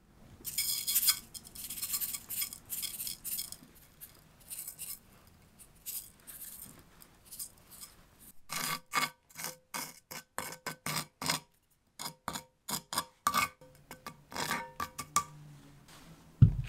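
Coarse unrefined brown sugar sprinkled from a wooden spoon into a small frying pan of melted butter, the grains rustling as they scatter. Then a run of quick scrapes and taps, about three a second, from the wooden spoon working in the pan. Near the end there is a dull thump on a wooden cutting board.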